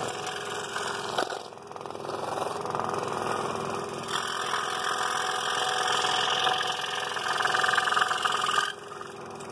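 Scroll saw running with its blade cutting through a thin wooden board, as the piece is spun and the blade backed into a sharp corner. The cutting gets louder and brighter about four seconds in and drops off shortly before the end.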